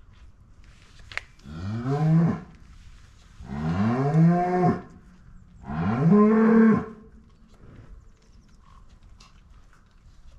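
A cow mooing three times in a row, each call a long, low moo that rises in pitch before breaking off. There is a sharp click just before the first moo.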